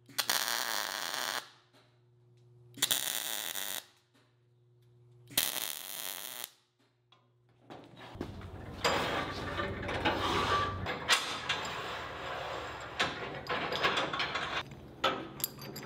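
MIG welder tacking steel hinge plates to a pipe: three short welds of about a second each, with the machine humming steadily between them. From about halfway there is a longer, uneven stretch of welding noise and clatter with many sharp clicks.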